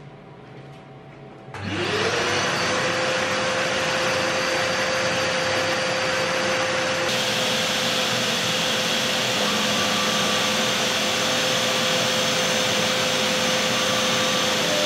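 CNC router spindle starting up about a second and a half in, its tone rising quickly and then holding a steady pitch. It then runs at speed with a loud, steady rushing noise, ahead of fly cutting the waste board.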